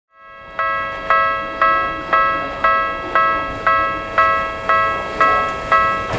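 Japanese railway level-crossing alarm starting up about half a second in and ringing a struck bell tone evenly, about two strikes a second, the warning that a train is approaching.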